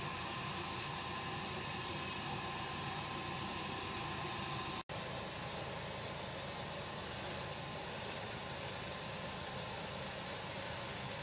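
Steady rushing hiss of flight-deck noise on an aircraft carrier, cutting out for an instant a little under five seconds in.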